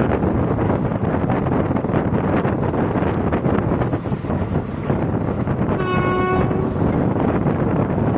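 Steady running noise of a moving express train heard from on board, rumble and wind rushing together. About six seconds in, a locomotive horn sounds once, a single steady tone lasting about a second.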